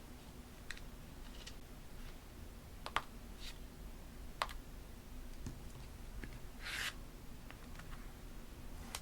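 Paper and stationery being handled for journaling: a few sparse sharp clicks and taps, the loudest about three seconds in, and a short paper rustle about seven seconds in.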